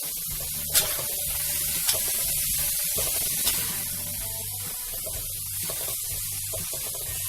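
Long beans frying in hot oil in a pan, a steady sizzle, with three short sharp clicks in the first half.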